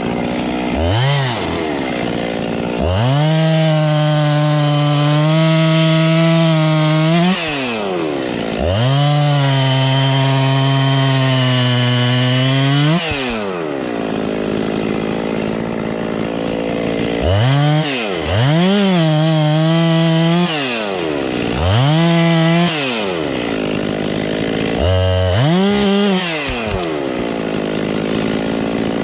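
Gas chainsaw revved to full throttle again and again, dropping back to idle in between: two long runs of about four seconds each, then several shorter bursts.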